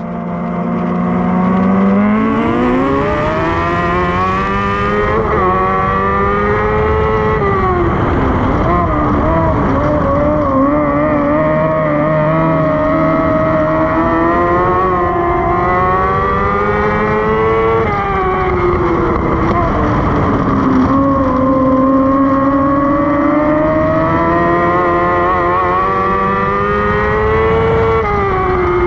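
Dwarf race car's engine at racing speed heard from on board. Its pitch climbs steadily as the car accelerates about two seconds in, then holds high and drops back sharply about every ten seconds as the driver lifts for the turns before climbing again.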